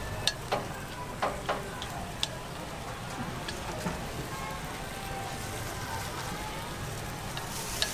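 Metal pick clicking and scraping against a hot chrysanthemum-bread mold plate as cakes are turned and batter is cleared, with several sharp clicks in the first couple of seconds, over a steady crackle of batter sizzling.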